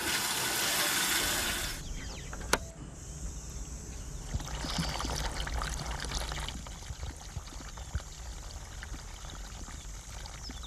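Water running hard from a washbasin tap for about two seconds, then shut off, with a sharp click a moment later. After that, a quieter, steady splash of water pouring from a pipe onto soil.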